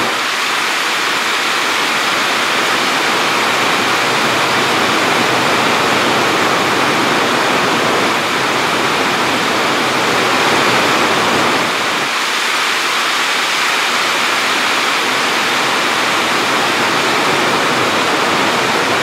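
A steady, loud rushing noise, even throughout, with no hoofbeats or other distinct sounds standing out above it.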